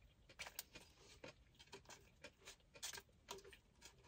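Faint, scattered crinkles and ticks of a fast-food paper sandwich wrapper being handled, about a dozen small sounds spread irregularly over a few seconds.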